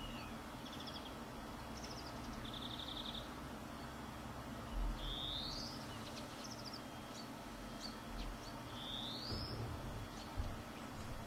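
Small songbirds calling: a few short buzzy trills and two rising slurred whistles, over a faint steady hum. A soft low bump comes about five seconds in and again about nine seconds in.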